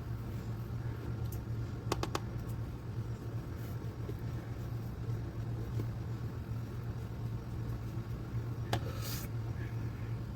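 A steady low hum, with a few faint clicks about two seconds in and a short rustle near the end.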